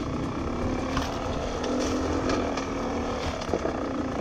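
Beta 300RR's two-stroke single-cylinder engine running at low, fairly steady revs, its pitch rising a little about two seconds in and then easing off, with scattered short clicks and knocks.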